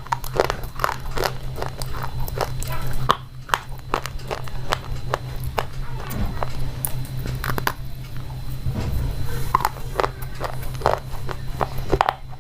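Slate pencils being bitten and chewed, giving many sharp, irregular crunches and clicks, over a steady low hum.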